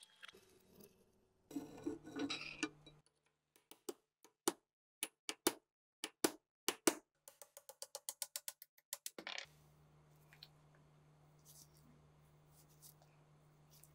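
Hand work on machine-gun parts: a brief scrubbing noise, then a run of sharp taps and clicks that quickens to about six a second, followed from about nine seconds in by a low steady hum.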